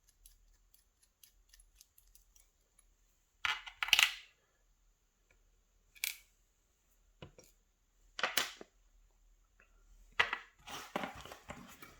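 Sharp clacks and clicks of a mortise lock cylinder and small tools being handled on a hard surface: five louder knocks, the loudest about four seconds in, with light ticks between them.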